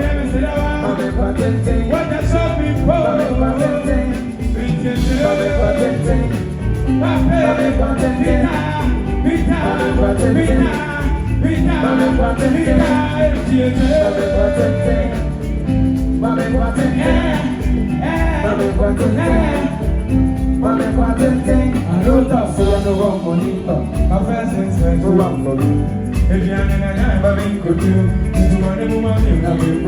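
Live band playing music with a steady beat during a sound check.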